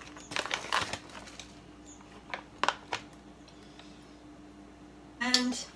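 Plastic food pouch rustling as it is handled and opened, followed by three light clicks of a metal spoon scooping from it onto a bowl.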